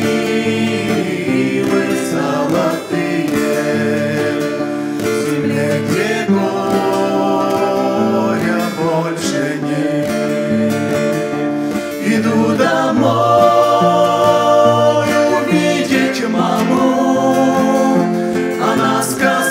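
A small mixed group of men and women singing a slow hymn in harmony, accompanied by acoustic guitar. The music gets louder about twelve seconds in.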